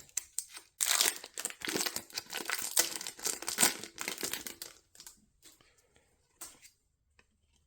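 Pokémon TCG booster pack's foil wrapper crinkling and tearing open by hand, a dense crackle for about four seconds, then a few light rustles as it settles.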